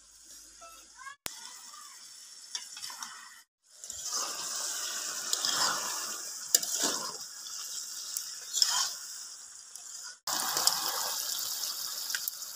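Chicken curry sizzling in a steel kadai over a wood fire just after water has been added, with a spatula scraping against the pan a few times as it is stirred. The sound comes in short stretches that cut off abruptly.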